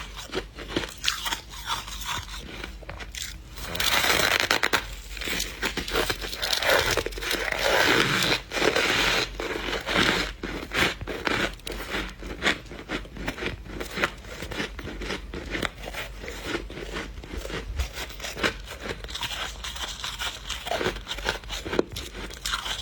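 Freezer frost being scraped and eaten: dense, crisp, squeaky crunching and chewing of frost, louder for a stretch from about four to ten seconds in.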